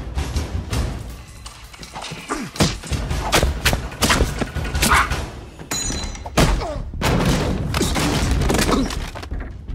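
Hand-to-hand fight sound effects: a rapid run of blows, thuds and impacts of bodies struggling at close quarters, sparse at first and dense from about two and a half seconds in.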